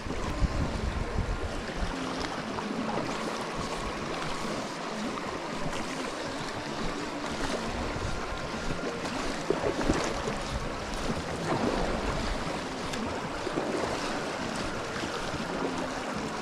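Steady rush of flowing river water, with wind buffeting the microphone.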